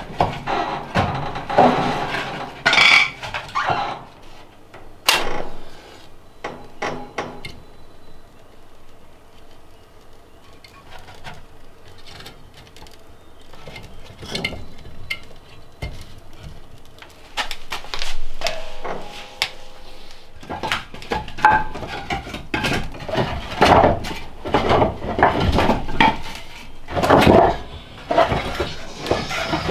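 Cookware clatter: pots, pans and utensils knocking and clinking in irregular bursts. The clatter is busy in the first few seconds, thins out, then picks up again over the last dozen seconds.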